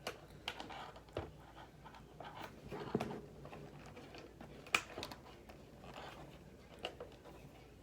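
Scattered light clicks and taps of small hardware being handled: a screw, spacer and screwdriver worked into the side of a plastic hockey helmet, with a few sharper clicks among them.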